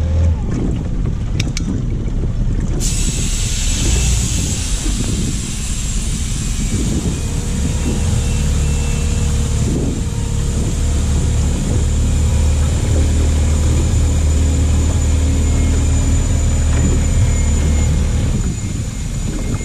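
Small boat's outboard motor running steadily under load while towing, with a broad steady hiss that sets in suddenly about three seconds in.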